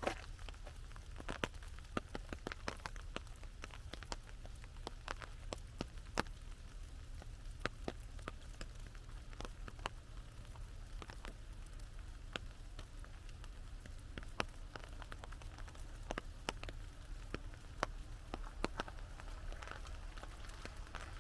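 Raindrops hitting an umbrella overhead: scattered sharp taps at irregular intervals over a steady low rumble.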